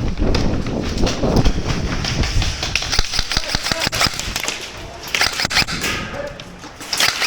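Airsoft guns firing in scattered sharp pops, denser about five seconds in and again near the end, over a low rumble of movement noise in the first couple of seconds.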